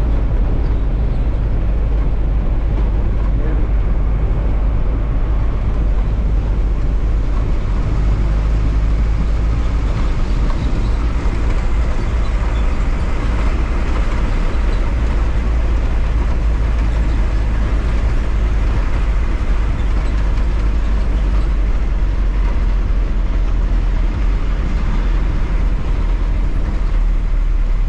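Interior of a bus with a 2009 Hyundai engine, driving along: a steady low engine rumble mixed with road noise, heard from inside the cabin.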